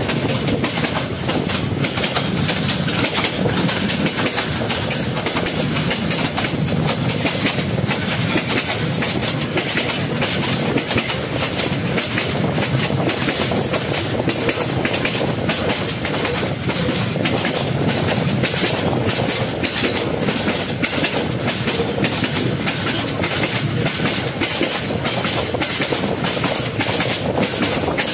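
A Myanmar passenger train heard from the window of one of its own coaches, running steadily with a continuous clatter of wheels over the rail joints.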